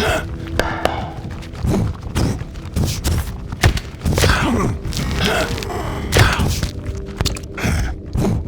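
Improvised hand-made foley: an irregular run of thuds and knocks mixed with vocal grunts and effort noises.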